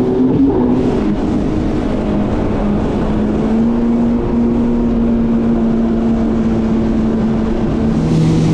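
Yamaha FXHO WaveRunner's engine running steadily while under way on the water. Its note steps up slightly about three and a half seconds in and gets louder near the end.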